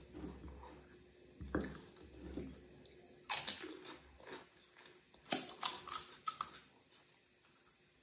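Mouthful of crisp pani puri shells being chewed: a few sharp crunches about three seconds in, then a quick run of louder crunches a little past halfway.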